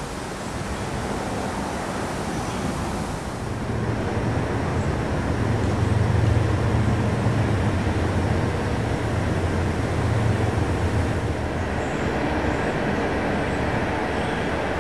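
Outdoor traffic noise: the low rumble of a passing heavy vehicle swells about four seconds in, is loudest for several seconds, then eases back to a steady background hum.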